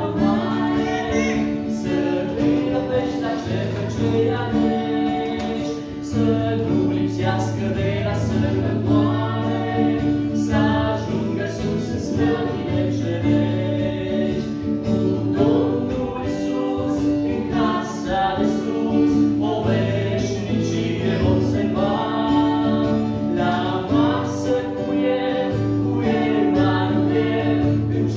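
Voices singing a Romanian Christian song of blessing for a child, accompanied by an acoustic guitar.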